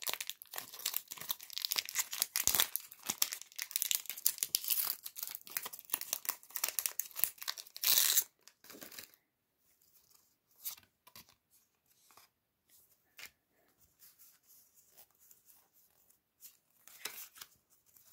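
Foil booster pack wrapper crinkling and tearing as it is pulled open, with a loud rip about eight seconds in. After that, only faint, scattered clicks and rustles of the cards being handled.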